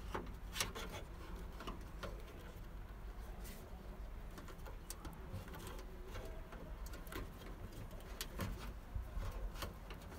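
Faint handling noise: scattered small clicks and rubbing as a rubber tailgate wiring gaiter is pushed and seated into its mounting hole in the tailgate's sheet metal, over a low steady background rumble.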